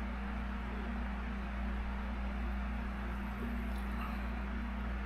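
Electric pedestal fan running with a steady low hum and an even hiss.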